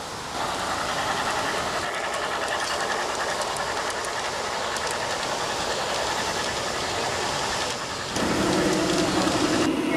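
G-scale model train running along garden railway track: steady rolling noise from wheels on rail and the drive, which changes abruptly about half a second in and again near the end.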